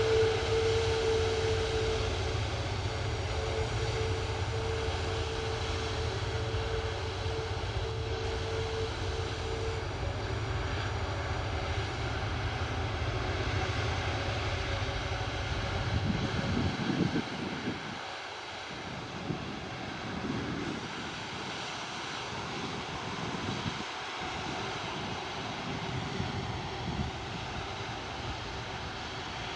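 Airbus A330-300 twin jet engines running with a steady low rumble and a whine. The whine fades about ten seconds in, and the rumble drops away around seventeen seconds in, leaving a fainter, uneven rushing sound.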